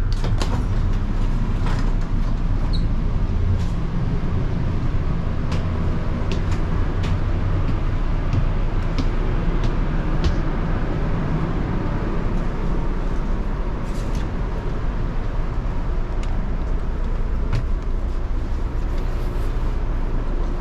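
Steady low rumble inside a passenger train carriage, with scattered short clicks and rattles.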